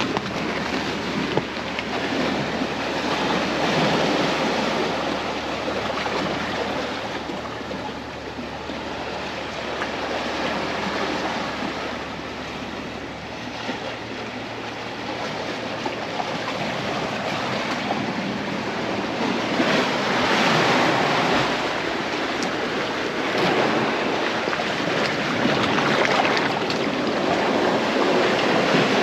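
Sea waves washing in and out over a rocky, pebbly shore: a steady rushing noise that swells and eases every several seconds.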